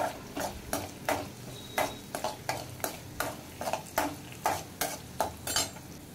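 Slotted metal spatula scraping against a kadai, about three strokes a second, as garlic cloves, dried red chillies and curry leaves are stirred while they fry in oil, over a faint sizzle. The stirring stops near the end.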